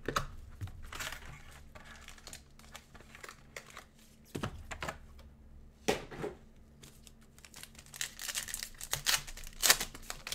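Foil trading-card pack wrappers crinkling and tearing as they are handled and opened, in irregular bursts with short quieter pauses.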